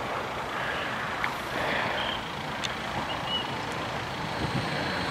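Steady distant rumble of an approaching electric multiple unit, a Stadler FLIRT, with a few faint clicks.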